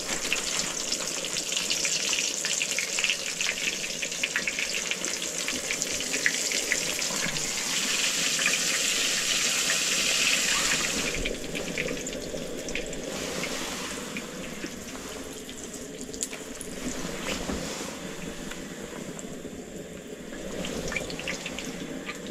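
Coated perch fillets deep-frying in hot oil in a cast iron pan: a dense crackling sizzle, loudest at first and easing off somewhat about eleven seconds in.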